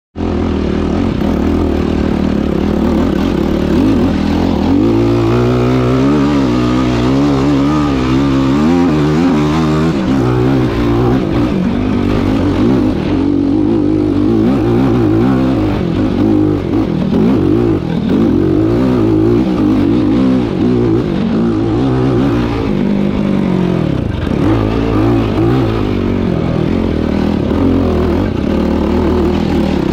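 Yamaha YFZ450R SE sport ATV's single-cylinder four-stroke engine being ridden hard, its pitch rising and falling again and again as the throttle is worked.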